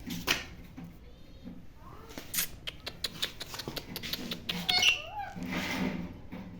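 Pet parrots calling, with a run of sharp clicks through the middle, a short bending call just before five seconds in, and a harsh screech near the end.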